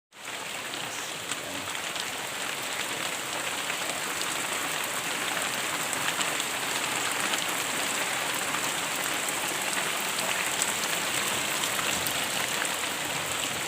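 Rain falling steadily, an even hiss with faint scattered drop ticks.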